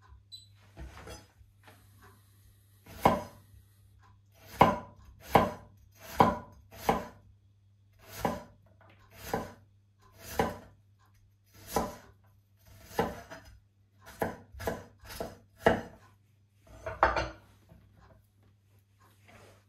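Knife chopping food on a cutting board in slow, separate strokes, about one a second, with a quicker run of four cuts about three quarters of the way through.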